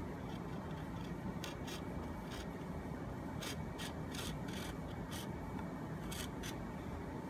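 A woodworking chisel paring thin shavings from a wooden frame piece: a series of short, light slicing strokes, starting about a second and a half in, over a steady low background noise.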